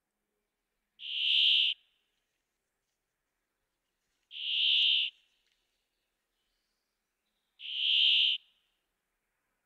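Brambling giving its drawn-out, buzzy wheezing note three times, each about three-quarters of a second long, swelling and then cutting off, about three seconds apart.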